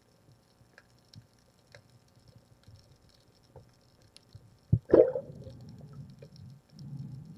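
Underwater, faint crackling clicks, then a little under five seconds in a spear is shot into a fish: two sharp cracks close together as it fires and strikes. A low rushing of stirred water follows.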